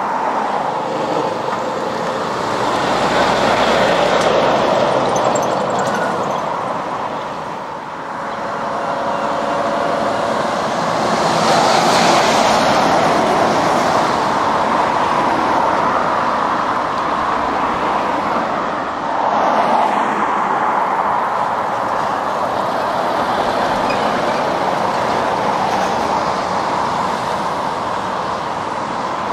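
Road traffic with lorries going by: a steady rush of tyres and engines that swells three times as vehicles pass close.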